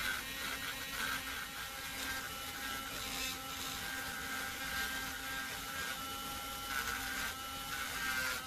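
Dremel Stylo rotary tool running with a carbide bit, a steady high motor whine with bouts of rasping hiss as the bit cuts into the polymer of a Glock frame to recess a stippling border.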